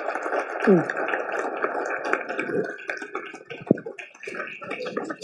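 Audience applauding, many hands clapping at the end of a lecture, stopping abruptly near the end.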